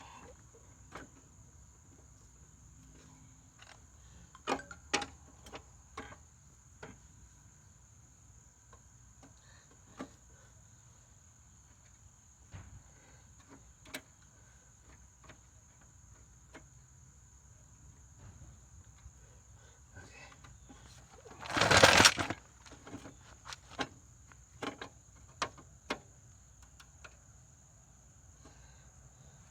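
Crickets trilling steadily at a high pitch, with scattered light clicks and knocks from metal parts being handled. About three-quarters of the way through there is a short, loud, noisy crackle lasting under a second.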